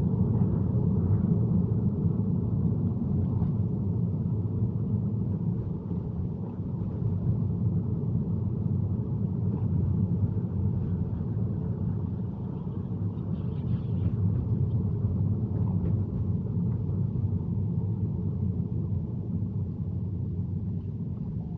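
Steady low road and tyre rumble inside an electric car's cabin, driving on wet roads in the rain.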